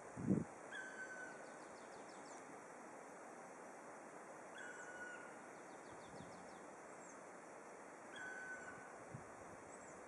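A small forest bird calling three times, about every four seconds: a short high note and a lower held whistle, with a quick faint rattling trill after each. A short dull bump sounds just after the start.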